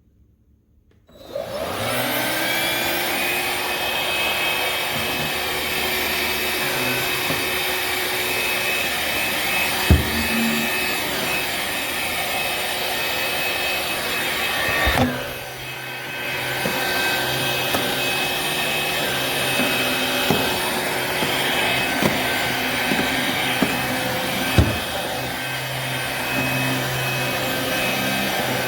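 Black+Decker PowerSeries+ 20V MAX cordless stick vacuum switched on about a second in. Its motor spins up with a rising whine and then runs steadily. A few sharp knocks come through, and the sound briefly drops and recovers about halfway through.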